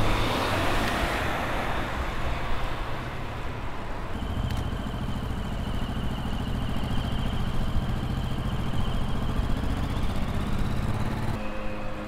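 Wind rushing over a helmet camera's microphone on a moving road bike, mixed with the steady hum of motor traffic. The low hum stops abruptly shortly before the end.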